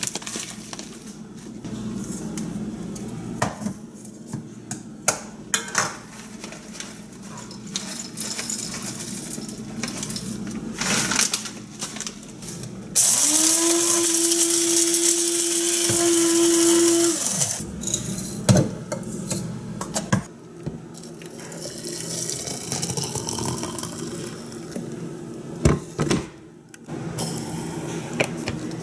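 Small electric blade coffee grinder grinding coffee beans for about four seconds, a little under halfway through: the motor spins up to a steady whine, then winds down as it is released. Scattered clicks and knocks of kitchen handling come before and after it.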